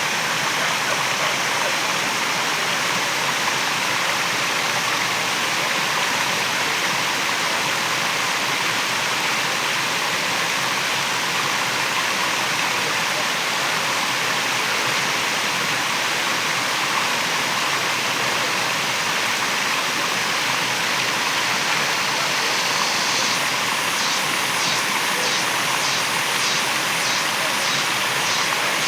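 Waterfall rushing in a steady, even roar of falling water. About 23 seconds in, a faint high call joins it, pulsing two or three times a second.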